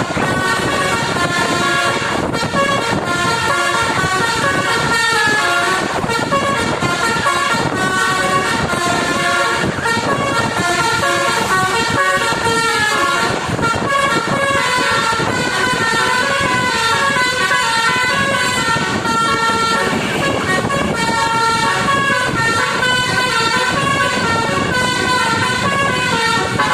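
Basuri musical air horn set, driven by an electronic horn module, playing a fast tune: changing horn notes, several sounding together, going on without a pause.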